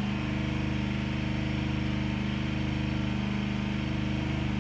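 A small engine running steadily, giving a low, even hum.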